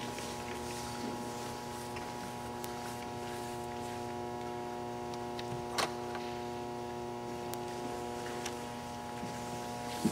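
Steady multi-tone electrical hum over a quiet room background, with one short sharp knock a little before six seconds in.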